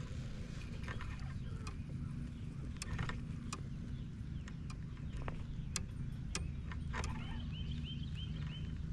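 A bird calling, with a quick run of five or six short repeated chirps near the end, over a steady low rumble and scattered light clicks.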